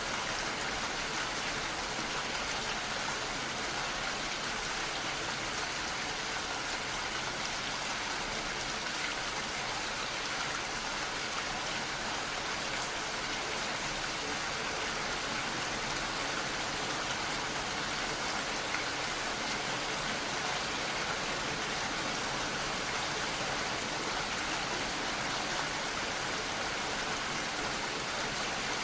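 Steady rainfall, an even hiss of rain with no distinct drops or changes.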